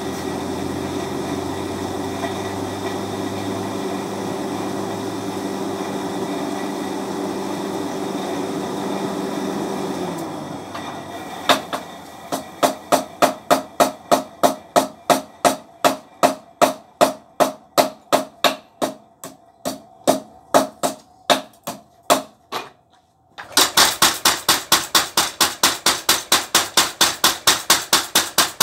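A steady motor hum that winds down and stops about ten seconds in. It is followed by evenly spaced hammer blows on metal, about three a second, slowly getting quieter. After a short pause near the end, a homemade motor-driven spring power hammer forges hot iron with rapid, loud blows, about four a second.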